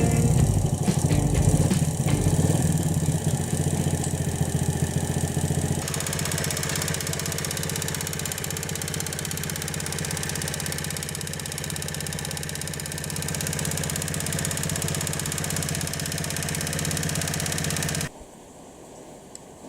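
Honda Benly CD50S's small four-stroke single-cylinder engine running at idle, a little livelier at first and settling steadier about six seconds in, then cutting off abruptly near the end. The engine has a loud clicking noise from around its top, which the owner was advised might be cured by cleaning the cam chain tensioner.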